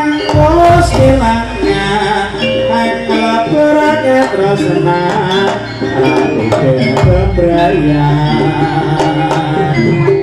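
Live Javanese jaranan gamelan music: kendang hand drums beating over a melody of tuned metal percussion, with deep gong notes.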